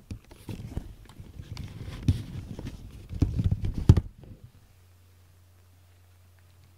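Close rubbing, bumping and clicking as a cat is handled right against the microphone, its fur brushing it. The noise stops about four seconds in, leaving a faint steady low hum.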